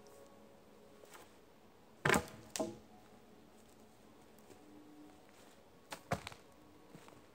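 Wooden poles knocking as they are handled and set down on the forest floor: two sharp knocks about two seconds in and two more about six seconds in.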